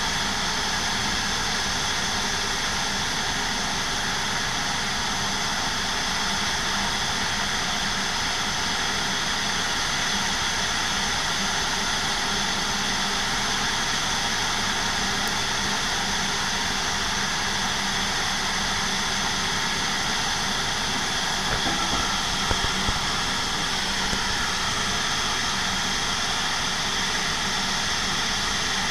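Steady engine noise: the Airbus A350-900's Rolls-Royce Trent XWB jet engines idling together with the pushback tug's engine running. A few short knocks about 22 seconds in.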